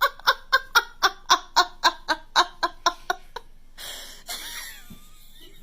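A rapid string of short, pitched laugh-like calls, about four a second, stopping a little past three seconds in, followed briefly by a hissing noise.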